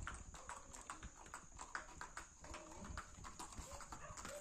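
Hooves of two walking horses clip-clopping on a concrete road: faint, uneven clicks, several a second.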